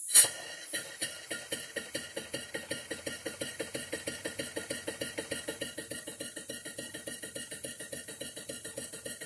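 1902 Willcox & Gibbs chain-stitch sewing machine stitching under power from a half-horsepower Sipp steam engine. A loud click just after the start, then a rhythmic mechanical clatter that quickens over the first couple of seconds and settles at about seven beats a second.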